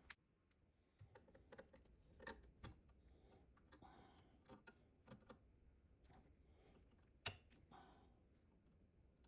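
Faint, irregular clicks and taps, one sharper knock about seven seconds in, with a few short scraping sounds between them, like small objects being handled and worked by hand.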